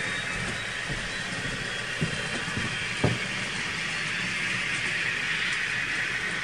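N-scale model trains running on the layout: a steady whirr of the locomotive motors and metal wheels rolling on the track, with two sharp clicks about two and three seconds in.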